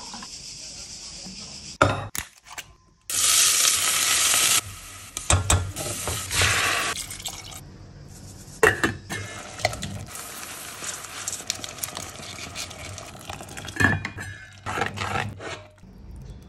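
Cooking sounds in a stainless steel pot, changing abruptly between short clips: food sizzling, with one loud stretch of sizzling about three seconds in, and a spoon stirring through the pot with a few sharp knocks of utensils against the metal.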